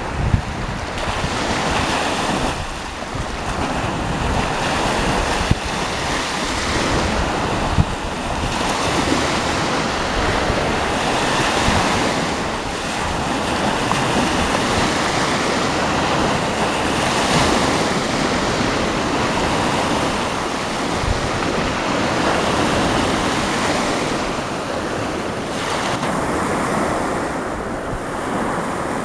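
Sea surf washing in, swelling and easing every few seconds, with wind rumbling on the microphone.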